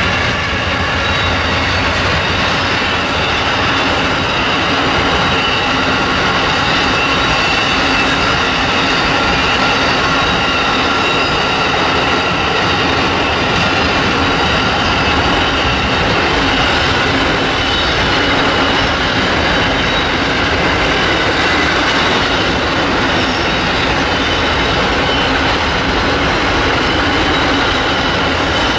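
A train's cars rolling past, their wheels squealing on the rails in several steady high tones over a loud continuous rumble. There is some clicking of wheels over rail joints in the first ten seconds or so.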